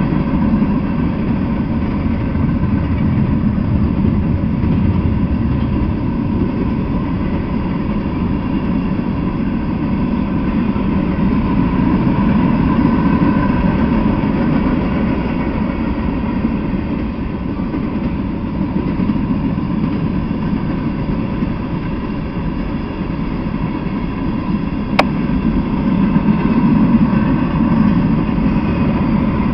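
Freight train cars rolling past, a steady rumble of steel wheels on the rails, with one short sharp click near the end.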